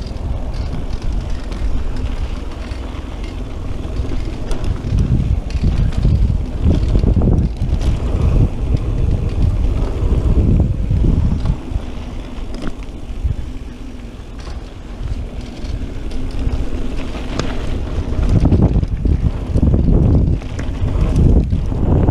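Wind buffeting the microphone of an action camera on a mountain bike riding fast down a dirt singletrack, over a steady tyre-on-dirt rumble with scattered knocks and rattles from the bike over bumps. The rush eases briefly a little past the middle.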